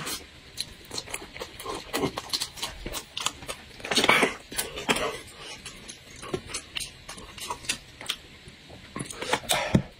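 Close-miked eating sounds: wet chewing, lip-smacking and finger-sucking, with many short sharp clicks and a louder burst about four seconds in.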